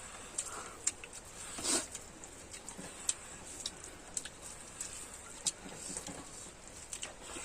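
Close-miked chewing: irregular wet mouth clicks and smacks, a few a second, with a couple of louder smacks.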